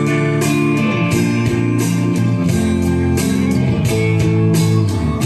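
Karaoke backing track playing through a COV-626 powered speaker: an instrumental passage led by guitar over a steady drum beat.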